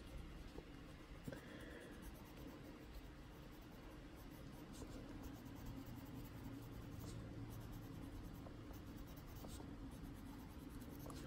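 Faint scratching of a Prismacolor colored pencil shading on paper, over a low steady hum.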